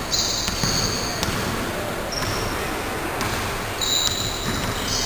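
A basketball bouncing on the court floor several times, irregularly, as it is dribbled in play, with players' feet moving on the court.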